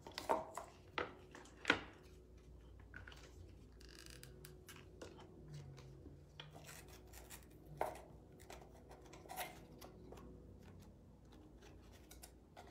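Faint rustling, rubbing and light taps of paper and cardboard being handled and pressed together, with a sharper tap about two seconds in and another near eight seconds.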